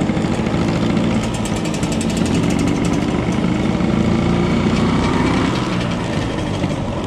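Vintage Vespa scooter's single-cylinder two-stroke engine running under way. Its pitch climbs slowly for about five seconds, then eases off near the end.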